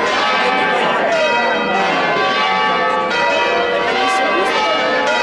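Church bells ringing in a peal, many overlapping tones sustaining, with a new stroke about every second.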